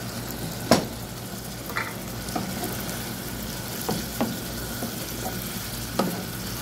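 Goat meat in a thick tomato-and-yoghurt sauce sizzling in a pan on a gas stove, with a spoon stirring it and knocking against the pan about six times, the sharpest knock just under a second in.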